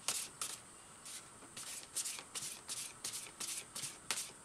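A tarot deck being shuffled by hand: cards slide against each other in a run of quick swishes, about two or three a second, with a short lull about a second in.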